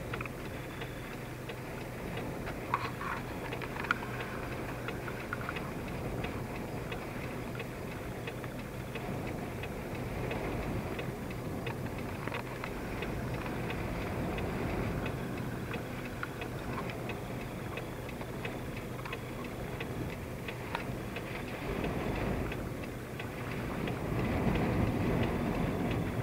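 Steady rumble of wind and a running vehicle heard from inside the cab, with a constant low hum and faint scattered ticks. Two sharper clicks come about three and four seconds in, and the rumble grows louder near the end.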